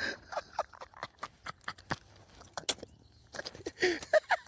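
A string of irregular clicks and taps from handling fishing gear, with a brief murmur of voice near the end.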